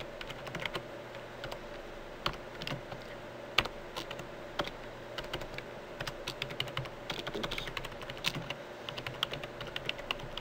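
Computer keyboard being typed on: irregular keystrokes with uneven gaps, one strike much louder about three and a half seconds in, over a faint steady hum.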